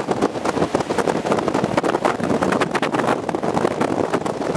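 Violent tornado wind rushing and buffeting against the vehicle and microphone, a loud, continuous noise broken by many quick crackles.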